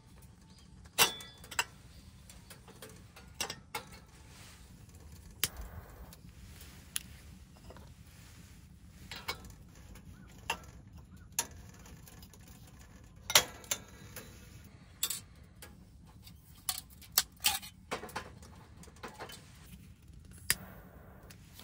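Handling an oil lantern's metal parts: irregular sharp clicks and clinks.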